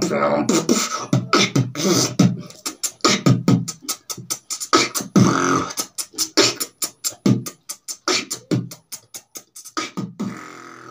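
Solo human beatboxing: a fast, steady run of mouth-made drum hits and clicks, with a few held hummed bass tones, thinning out near the end.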